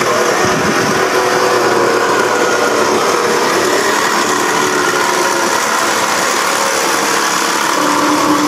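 A small engine running steadily, its drone wavering slightly in pitch.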